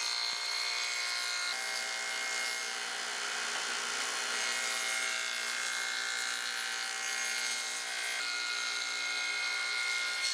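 Rockwell radial arm saw with a quarter-inch dado head running and cutting a quarter-inch groove along plywood drawer pieces as they are fed past the cutter. The tone shifts about a second and a half in and again about eight seconds in.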